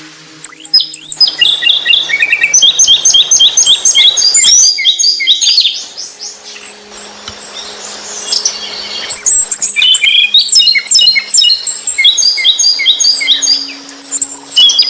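A songbird singing in loud bouts of rapid, sharp, high chirps, with a pause of about three seconds midway and a shorter break near the end.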